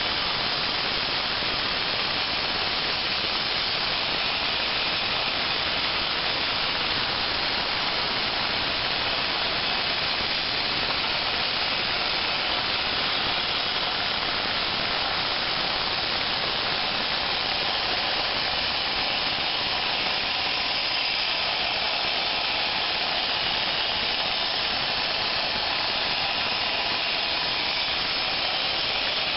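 CNC plasma cutter torch cutting sheet metal: a steady, unbroken hiss of the plasma arc and its air jet.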